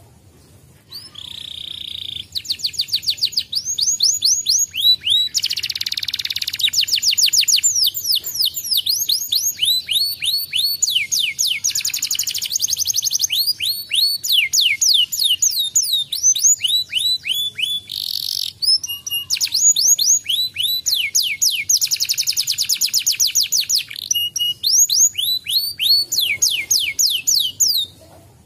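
Domestic canary singing: long rolling trills made of fast runs of repeated high falling notes, changing from one run to the next. The song starts about a second in, breaks briefly once, and stops just before the end.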